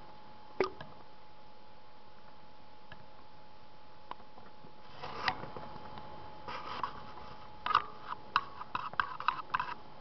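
Scattered sharp clicks and rustling close to the microphone, a single click near the start and a dense run of them in the second half, over a faint steady hum.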